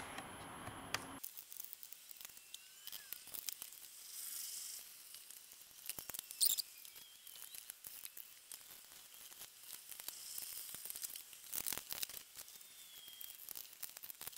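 Faint high steady whine from the monitor's power-supply transformers, cut off about a second in. Then scattered light clicks, taps and rustles of the LCD monitor being reassembled: the metal shield over the power board and the plastic back case handled and set in place, with one louder knock about halfway.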